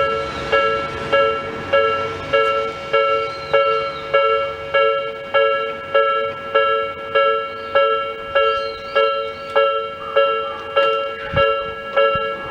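Japanese railway level-crossing electronic warning alarm of the Nikko type, ringing a steady repeating ding about one and a half times a second, each ding with a long fading tail.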